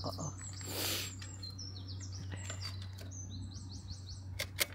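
Songbird chirping in repeated short, high phrases that fall in steps, with a brief rustle about a second in and two sharp clicks near the end.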